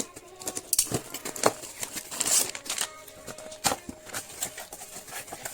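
Plastic packaging of a pack of moist toilet wipes crinkling and clicking as it is handled and opened, with a longer rustle about two seconds in.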